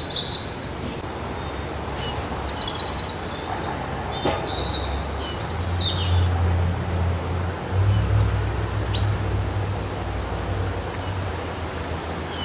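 Steady high-pitched trilling of insects, unbroken throughout, with a few short bird chirps in the first half and a low rumble in the middle.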